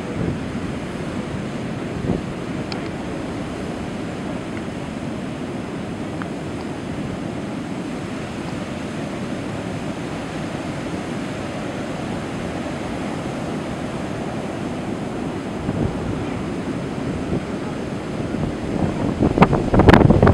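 Heavy post-hurricane surf breaking and washing up the beach, a steady rush of noise. Near the end, wind gusts buffet the microphone loudly.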